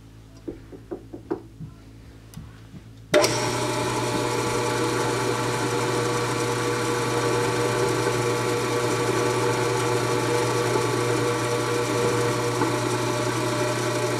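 Rusnok mini milling machine's spindle starting abruptly about three seconds in, after a few light clicks, and running with a steady whine while a carbide end mill plunges through a steel rifle receiver to open a scope base hole out for 8-40 screws.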